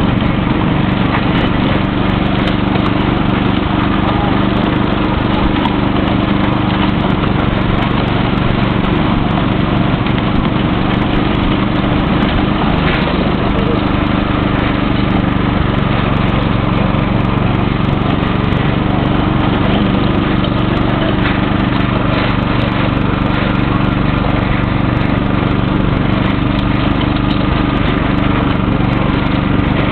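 Petrol engine of a miniature railway locomotive with hydrostatic drive, running steadily under load as it hauls the passenger cars along the track.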